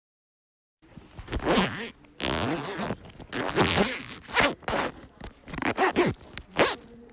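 Zipper being zipped back and forth, a series of quick zips one after another with short pauses between them.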